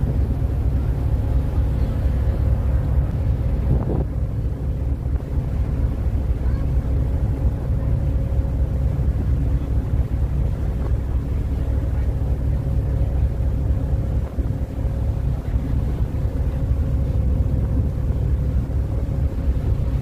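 Passenger ferry's engines running steadily under way: a deep, even rumble with a steady hum, mixed with wind buffeting the microphone and the rush of the wake churning alongside.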